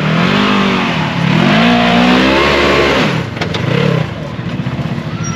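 Off-road vehicle engine revving up and down for about three seconds, then falling back to a lower, steadier run, with a few sharp knocks about three and a half seconds in.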